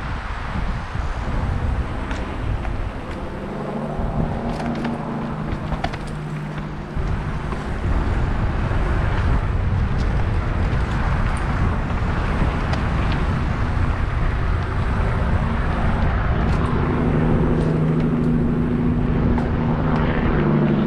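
Mountain bike riding down a dirt singletrack, heard from an action camera on the moving bike or rider: wind on the microphone and tyres rolling over the dirt, with scattered knocks and rattles from bumps. A steady low hum comes in twice, and the noise gets louder about a third of the way through as speed picks up.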